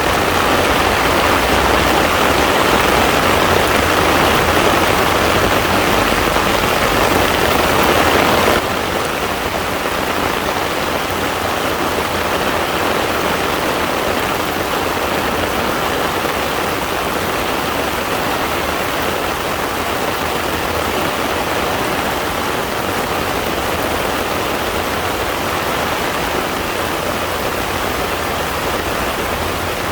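Heavy rain falling on a pond's surface, a steady dense hiss of drops. About eight and a half seconds in it drops suddenly to a slightly quieter, duller rain that holds steady.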